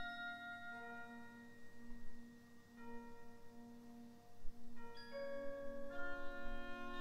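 A wind band playing a soft, slow passage of held chords. The notes change every second or two, and the sound grows fuller near the end.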